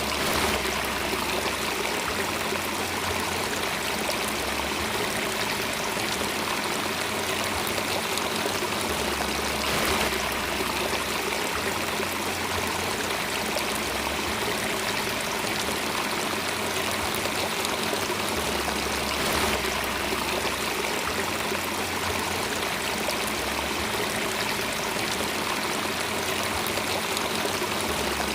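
Flowing water of a stream, a steady rushing with slight swells about every ten seconds.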